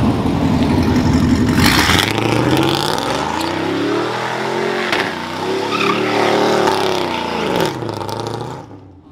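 A pickup truck's engine revving hard, its pitch sweeping up and down again and again, while the rear tyres spin in a smoky burnout. The sound fades near the end.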